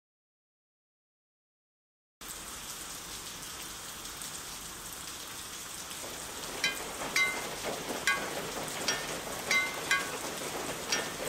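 Total silence for about two seconds, then steady rain begins. About halfway through, single water drops start plinking over the rain, each a short pitched drip, about seven at uneven intervals.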